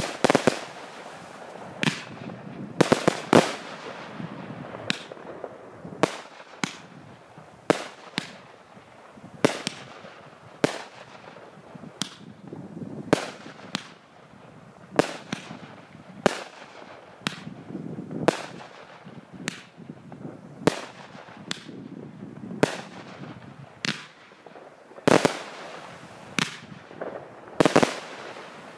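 Cosmic Fireworks Flaming Phoenix, a 133-shot single-ignition firework cake, firing shot after shot: a steady string of sharp bangs, about one a second, some in quick pairs, with a hiss between them.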